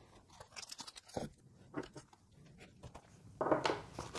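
Light clicks and taps of wristwatches on leather straps being handled and set down on a wooden table, then from about three and a half seconds in a louder rustling as hands dig into a black watch case.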